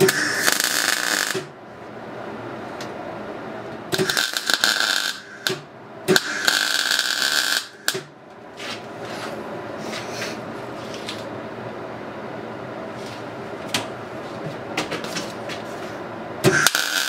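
Electric arc welder striking short tack welds on sheet steel and square tube: bursts of arc noise about a second or a second and a half long, three in the first eight seconds and another starting near the end. Between the welds a steady machine hum and a few light clicks.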